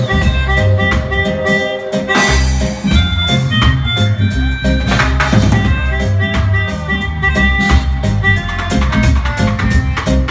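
Live band playing an instrumental passage: drum kit keeping a steady beat under bass, guitar and held melody notes, with no singing.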